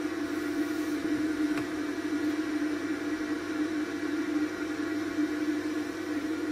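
Steady machine hum with a faint hiss, unchanging throughout.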